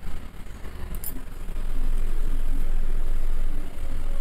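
Steady low rumble with faint bubbling from a pan of fish curry gravy simmering on a gas stove, and a small click about a second in. The rumble grows louder about two seconds in.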